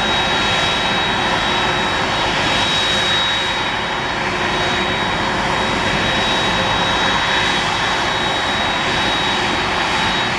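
Four turbofan engines of a Boeing 747-400ERF freighter running at taxi power: a steady jet noise with a high whine on top.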